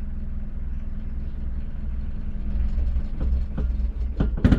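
Honda City Pro T's small four-cylinder petrol engine idling while still cold, with a steady low hum. Near the end come a few clicks and loud knocks, and the engine stops; the owner puts its running down to a probable leak in the carburettor.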